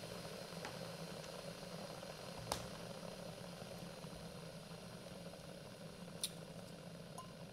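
Electric kettle heating water: a steady low hum and hiss. Two light clicks sound about two and a half and six seconds in.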